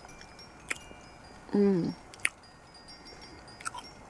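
Faint tinkling chimes with a few sharp clicks, and a short low vocal sound from a person about a second and a half in.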